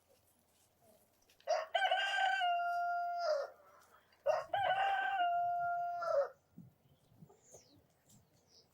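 Rooster crowing twice, close by: two long cock-a-doodle-doos about a second apart, each held on a steady pitch and dropping at the end.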